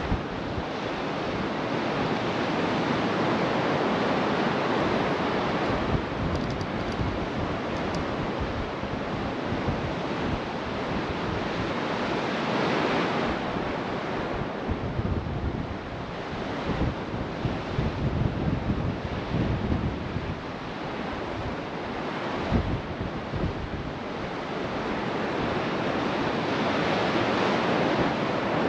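Atlantic surf breaking and washing in, swelling and easing every several seconds, with wind buffeting the microphone.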